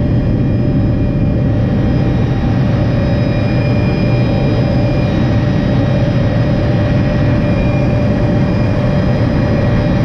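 Helicopter running steadily in flight: a loud, even drone with a steady whine above it.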